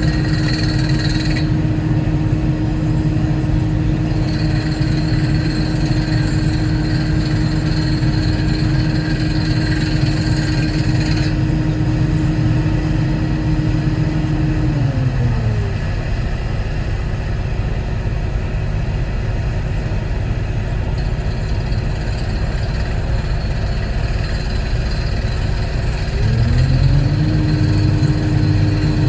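Volvo 140E excavator's diesel engine running at working speed, dropping to idle about halfway through and revving back up near the end. A faint high whine sits over the engine for several seconds early on.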